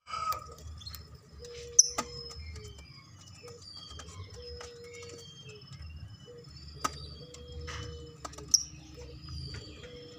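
Lovebirds chirping: softer high twittering broken by a few loud, sharp shrieks, over a low background rumble.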